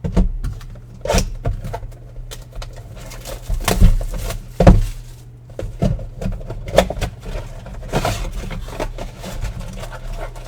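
Trading cards and their packaging being handled on a tabletop: irregular knocks and clicks, the loudest about four seconds in and again just after, over a steady low electrical hum.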